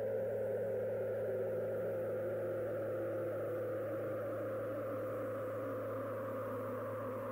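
Steady low humming drone with a higher tone that slowly slides down in pitch, fading slightly.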